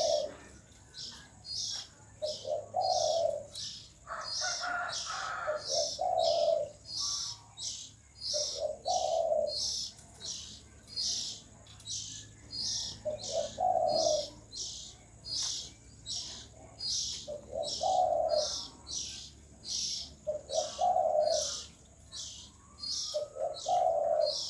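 A dove cooing in short low phrases every few seconds, about eight in all, over a steady high chirping that repeats a little faster than once a second.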